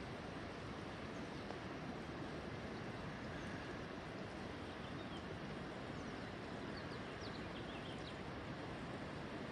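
Steady rushing of a shallow river flowing over rocks and riffles, with a few faint bird chirps in the second half.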